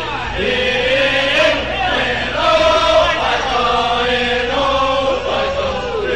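A group of men singing a fraternity song in chorus, holding long notes that step and slide from one pitch to the next.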